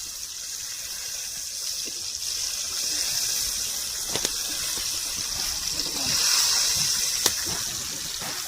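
Chicken pieces deep-frying in hot oil in a pan, a steady high sizzle, with a couple of sharp clicks about four and seven seconds in as the pieces are turned.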